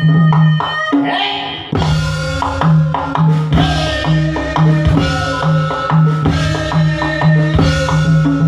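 Live Javanese gamelan music played through a PA: steady, lively drum strokes over short, repeated struck notes in a regular rhythm.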